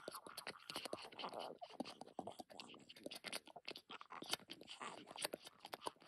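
Squishy, wet bug-crawling sound effect: a rapid, irregular stream of small clicks, crackles and crunches, made to go with insects crawling.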